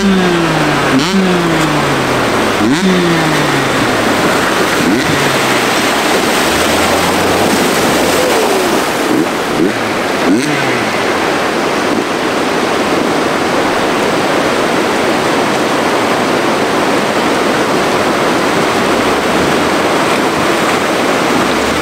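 Off-road vehicle driving through a water crossing. Over the first four seconds or so the engine revs in quick repeated blips, each falling away, then a steady loud rush of splashing water.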